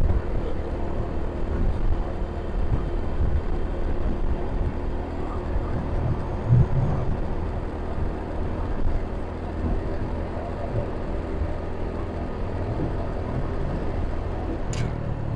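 Motorcycle engine running at a steady cruise, with wind and road noise, and a few sharp clicks near the end.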